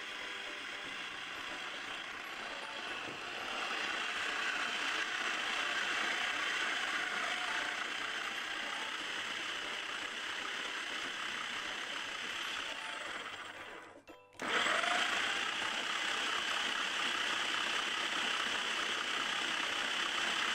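Food processor motor running steadily, kneading bread dough with its blade. The motor cuts out for about half a second roughly two-thirds of the way through, then starts again.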